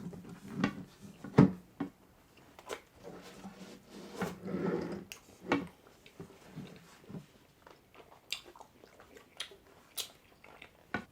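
Close-up eating sounds: biting and chewing into a pulled pork sandwich and fries, with irregular mouth smacks and clicks. The loudest bite comes about one and a half seconds in.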